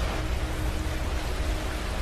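Ocean waves washing on a beach: a steady, even rush of surf.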